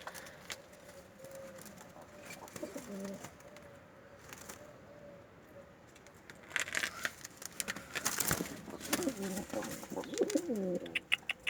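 Domestic pigeons cooing in a loft, with low, rolling coos that grow busier in the last few seconds. Bursts of rustling and knocking come partway through.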